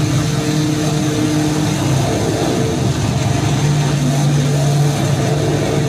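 Live experimental noise music: a loud, steady, engine-like low drone of held tones over a thick wash of noise, the low tone shifting and growing stronger about three and a half seconds in.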